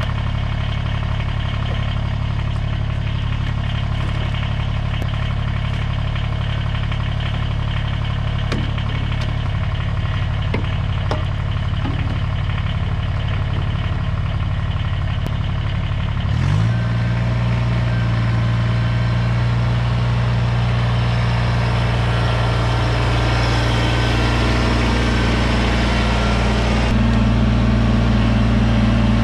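Kubota BX23S compact tractor's three-cylinder diesel engine running steadily at idle. About halfway through its speed rises sharply, and it steps up again near the end as the tractor is driven off.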